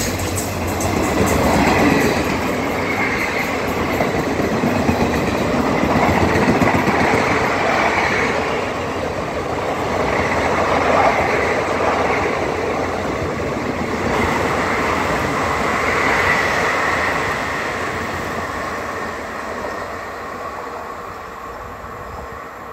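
Passenger coaches of an Indian Railways express rushing past at speed, a continuous rumble and clatter of wheels on the rails. The sound dies away over the last few seconds as the end of the train pulls off down the line.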